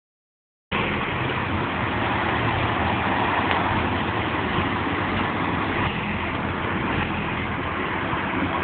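Steady motor-vehicle noise, a low engine hum under a constant hiss, starting abruptly under a second in.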